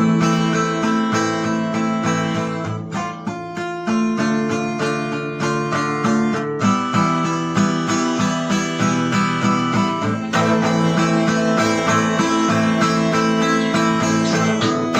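Acoustic guitar playing an instrumental piece, chords strummed in a steady rhythm.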